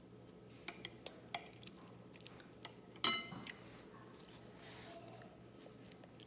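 Eating utensils tapping against a bowl: a few light clicks, then one louder clink about three seconds in that rings briefly.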